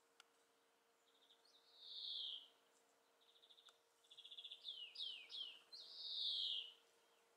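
A songbird singing two high phrases: quick buzzy trills, each phrase ending in a long down-slurred note, the second with a few quick falling notes before its final slur.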